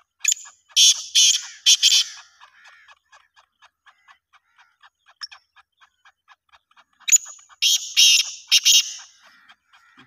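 Black francolin calling twice, each call a loud, harsh phrase of several notes lasting about two seconds, the second coming about seven seconds after the first. Between the calls a faint, even ticking runs at about three or four ticks a second.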